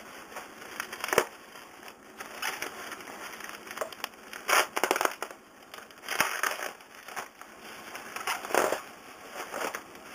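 Plastic bubble wrap crinkling and crackling as it is pulled and unwrapped by hand, in irregular bursts.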